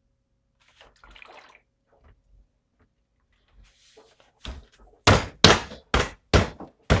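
Plastic battery electrolyte container being pushed down hard onto a new battery's fill holes to start the acid flowing: a run of loud thumps, about two a second, in the last couple of seconds, after faint handling rustle.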